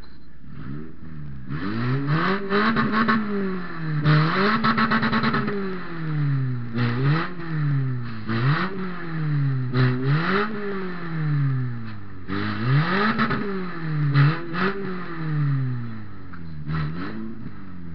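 Toyota Matrix derby car's four-cylinder engine revved again and again, about eight quick rises in pitch each falling back, heard from inside the stripped cabin. Bursts of rattling come at the highest revs.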